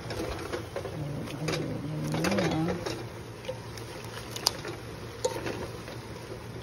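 Kangkong stems and leaves being stirred and tossed in a nonstick pan with a utensil: rustling of the greens, with sharp clicks of the utensil against the pan, the sharpest about four and a half and five seconds in.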